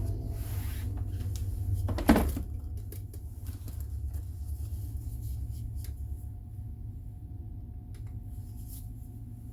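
A single loud knock about two seconds in, then a few faint clicks, over a steady low hum.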